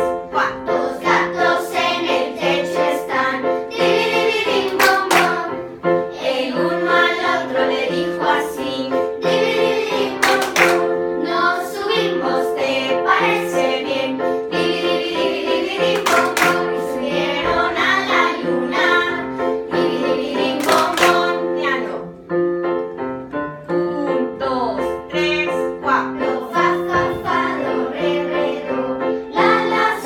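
A group of children singing a song in unison while playing electronic keyboards, with a few sharp hand claps along the way.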